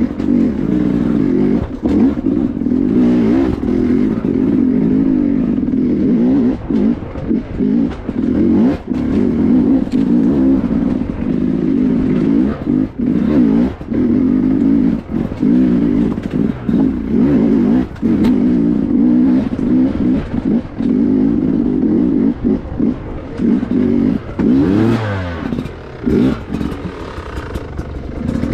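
Off-road dirt bike engine running under load at low speed over rocky singletrack, the revs rising and falling with frequent short throttle cuts.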